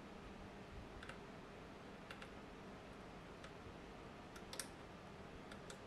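Near silence with a handful of faint, sharp clicks: multimeter probe tips tapping and scraping on components of a circuit board during a continuity check. No continuity beep sounds, because there is no connection through.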